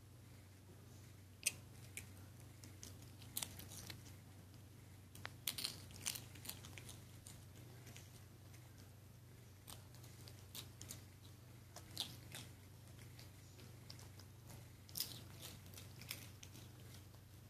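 Faint, irregular clicks and snaps of a puppy and a capuchin monkey play-biting and mouthing each other as they wrestle, over a low steady hum.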